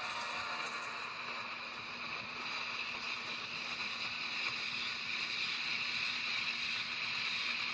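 Steady rushing noise of a train in motion, heard while riding in its caboose: wheels on the rails and the rush of air, even and unbroken.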